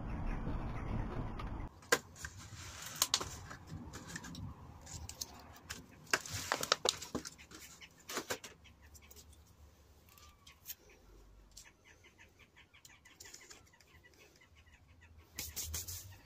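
Handling noise: a steady rumble that cuts off abruptly about two seconds in, then scattered sharp clicks and crackles of plastic seed-module trays and compost being handled, thinning to faint ticks in the second half.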